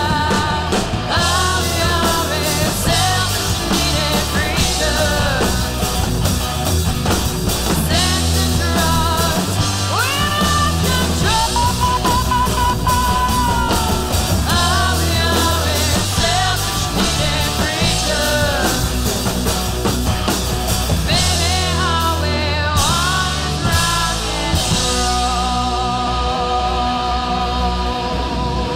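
Rock band playing live: a female singer over electric guitars and a drum kit, holding one long note about twelve seconds in. Near the end the singing gives way to held guitar chords.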